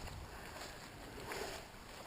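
Faint, steady outdoor background noise, an even hiss with no distinct events.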